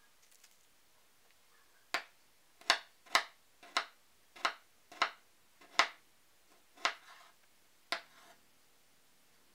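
Kitchen knife slicing a peeled garlic clove on a cutting board: about nine crisp taps of the blade meeting the board, roughly one every half second to a second, starting about two seconds in.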